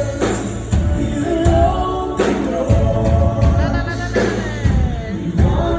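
Background music with singing, drums and bass, in a gospel style.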